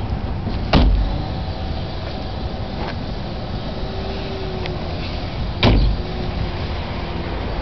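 Two doors of a 1999 Pontiac being shut, one about a second in and another near the end, each a single sharp impact over steady background noise.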